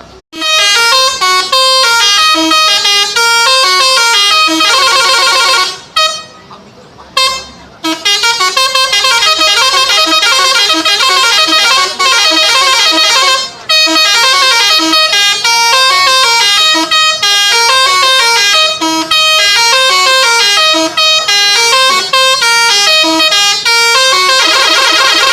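Multi-tone "telolet" bus horn on a Saztro Holiday coach playing a fast stepping melody of held notes. It breaks off about six seconds in, gives one short toot, then plays on and ends in a fuller held chord near the end.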